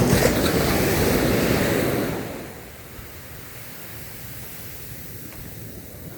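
Surf washing in: loud for about two seconds, then dying away to a low, steady wash, with wind buffeting the microphone.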